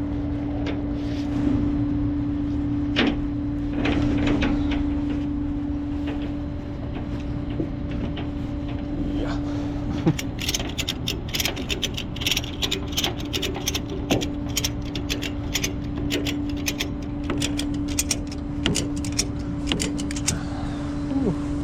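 Vehicle engine running with a steady hum, with a few knocks and then, from about halfway, a quick irregular run of sharp clicks and rattles.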